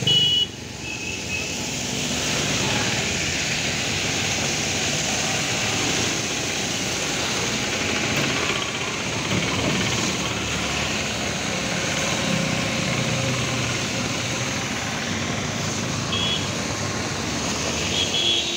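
Motor traffic driving through a flooded street: scooters and a small truck running, tyres splashing through the water, under a steady rushing noise. A few short high beeps sound near the start and again near the end.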